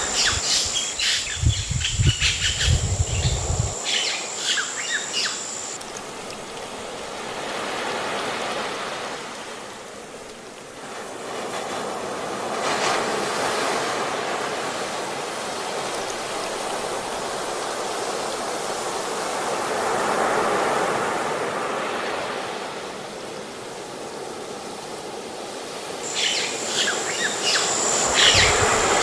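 Ocean surf washing in slow swells that rise and fall every several seconds. Birds chirp over a steady high-pitched insect tone at the start and again near the end, with a brief low rumble about two seconds in.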